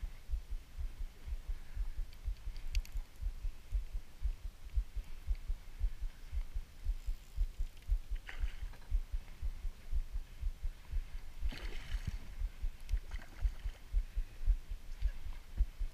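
Small waves knocking against the hull of a small boat, a quick irregular run of low thuds, with a few faint clicks now and then.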